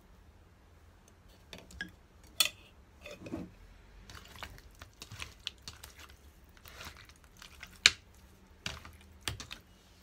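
Hands squishing and rubbing raw katla fish pieces with salt and turmeric in a bowl, starting about a second and a half in, with scattered sharp clicks and knocks against the bowl; the sharpest comes near eight seconds in.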